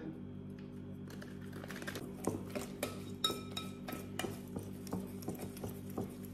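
A metal utensil stirring and whisking thick batter in a glass mixing bowl, giving irregular light taps and clinks against the glass, a few ringing briefly about three seconds in. A steady low hum runs underneath.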